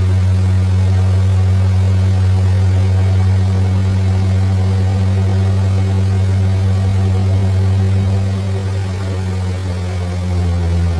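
Motorboat engine running at a steady speed, a loud low drone that holds one pitch and eases slightly in level near the end.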